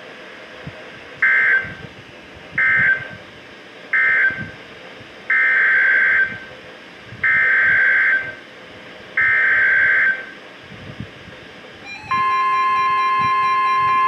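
Emergency Alert System data bursts from a NOAA weather radio's speaker. Three short buzzy bursts mark the end of the warning message, then three longer bursts carry the header of a second warning. About 12 s in, the steady 1050 Hz weather alert tone and the radio's alarm start.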